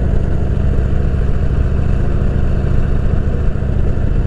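Harley-Davidson Shovelhead FLH80's 80-cubic-inch V-twin engine running steadily at an even speed.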